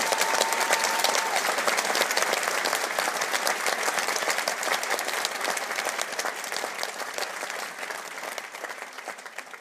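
Large theatre audience applauding at the end of a song, a dense mass of clapping that gradually dies away towards the end.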